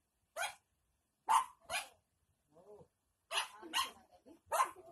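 A dog barking: six short, sharp barks, two of them in quick pairs.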